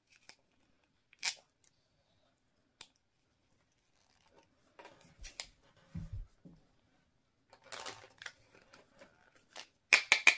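Clear plastic toy cup being pried open with a plastic Play-Doh tool: scattered clicks and crackles of stiff plastic with handling rustle, a low knock about six seconds in, and the loudest cluster of plastic clicks near the end.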